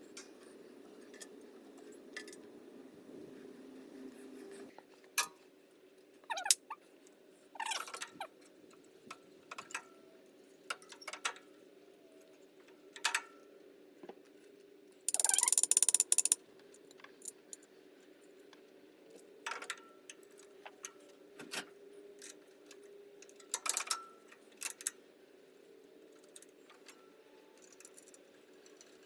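Scattered light clicks and taps of fuses being handled and probed in a tractor's fuse box during a continuity check, over a faint steady hum. A louder noisy burst lasting about a second comes about halfway through.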